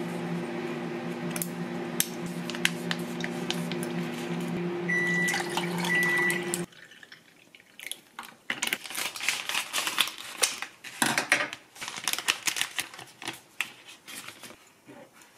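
Coffee poured from a carton over ice cubes in a tall glass, the ice crackling and clicking as the liquid runs in, over a steady low hum with two short high beeps near the end of the pour. About seven seconds in this stops and gives way to light clinks of a knife and fork on a ceramic plate.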